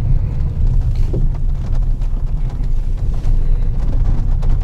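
Steady low rumble of tyres and running gear, heard inside a passenger car driving along a rough dirt and gravel track. There are a few light ticks in the second half.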